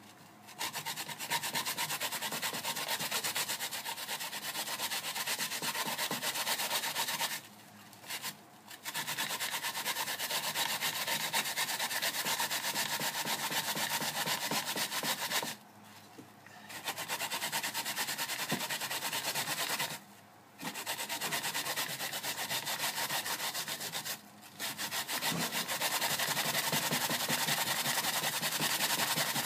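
Daikon radish being grated by hand on a plastic grater: a fast, continuous rasping of strokes, stopping briefly a few times before carrying on.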